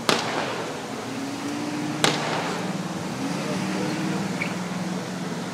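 Two single gunshots about two seconds apart, one right at the start and one about two seconds in, over a steady low hum.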